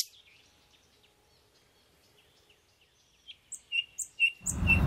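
Near silence for about three seconds, then a bird chirping in a quick run of short, high calls. Just before the end a sudden wash of louder outdoor noise comes in.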